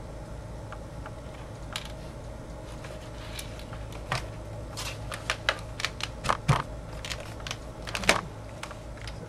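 Irregular light clicks and taps of a small screwdriver and tiny screws being handled on a MacBook's case, mostly clustered from about four to eight seconds in, over a steady low hum.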